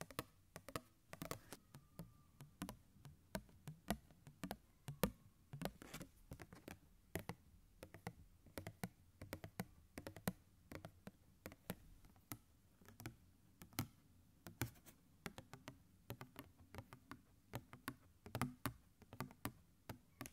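Fingernails tapping and clicking on a small printed card held right at the microphone: quick, irregular taps, several a second.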